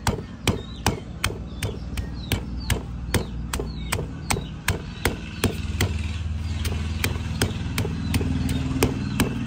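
A pestle pounding kroeung spice paste in a mortar, steady strikes about three a second. From about halfway, a low steady motor hum joins in under the pounding.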